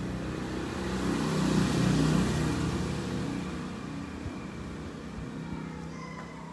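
A motor vehicle passing by: its engine grows louder, peaks about two seconds in, then fades away over the next two seconds.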